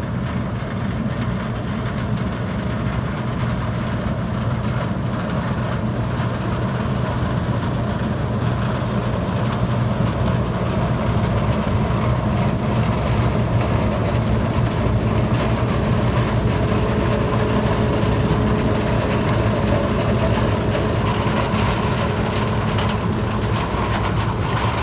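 Combine harvester running as it harvests corn: a steady, deep engine rumble with the machinery's whirr over it, growing gradually louder.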